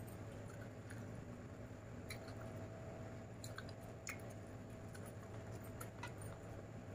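Eating by hand: fingers mixing rice with chicken curry on a steel plate, and chewing. Heard as faint, scattered wet clicks and squishes over a steady low hum.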